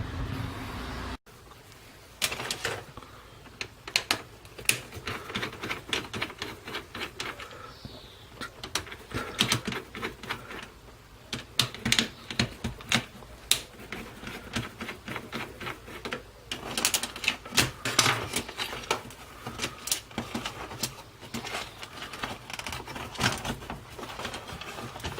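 Irregular rapid clicks, taps and light clatter of hand tools and small plastic and metal parts as an electronic unit is taken apart, with busier flurries at several points.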